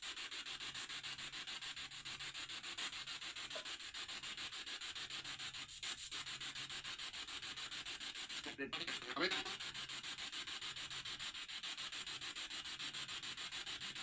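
Steady hiss of recording noise with a fine rapid flutter and a low hum that comes and goes. About nine seconds in, a brief faint voice-like sound with falling pitch rises out of the hiss; it is captioned as the words 'que te parto la cabeza' and presented as a spirit voice.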